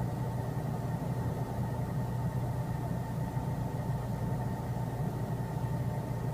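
Steady low rumbling background noise, even in level throughout.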